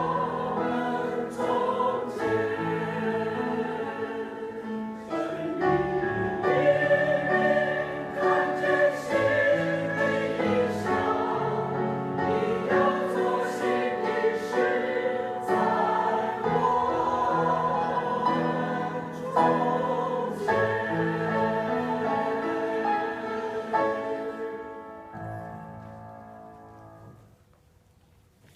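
A choir singing with accompaniment, the music fading out near the end.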